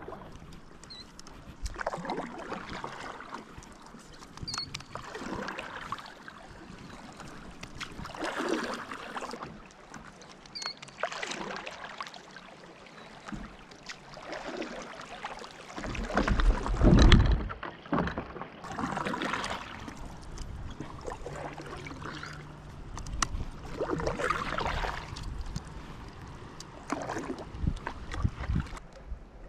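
Paddle strokes pulling through river water, a splashing wash every two to three seconds. Just past the middle comes one loud low rumble.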